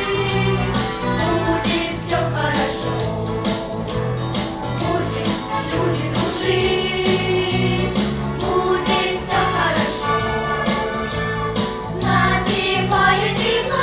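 Children's choir singing a pop song in unison over a recorded backing track with a steady beat.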